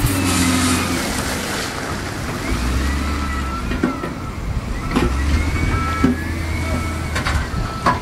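Diesel engine of an SDLG wheel loader running under work, its low note dropping a little about two and a half seconds in. Several sharp clanks are heard in the second half.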